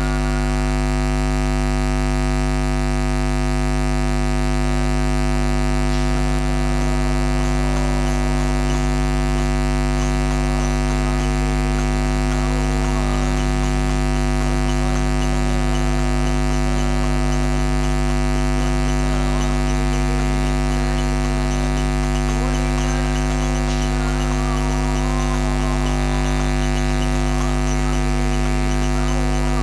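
Loud, steady electrical hum and buzz from a sound system's mixer feed: many unchanging tones stacked from a deep hum upward, with faint wavering voices underneath.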